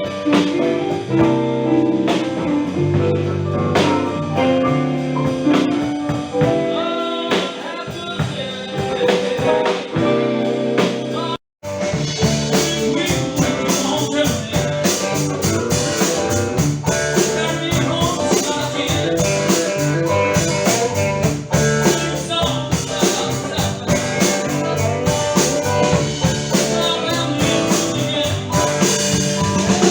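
Live band music with drums and sustained bass and mid-range notes. About eleven seconds in it breaks off for a moment and cuts to another passage with busier drums and cymbals.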